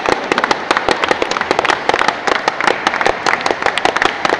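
A group of people applauding: many quick, irregular hand claps overlapping.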